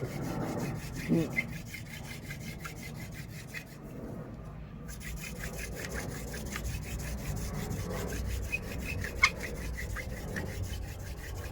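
Wooden hand-drill spindle spun back and forth between the palms, grinding into a fireboard notch with a steady, fast rhythmic rasp while it works up smoke toward an ember. A single sharp click about nine seconds in.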